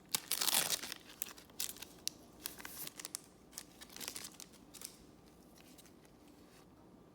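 A trading-card pack wrapper torn open with a crinkling rip in the first second, followed by scattered scrapes and clicks of the cards being handled, dying away about five seconds in.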